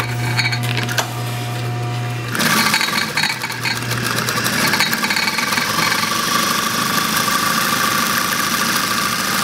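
Juki LZ-1280 zigzag industrial sewing machine. Its motor hums steadily, and about two seconds in the machine starts stitching at speed and runs on evenly, sewing normally after being threaded.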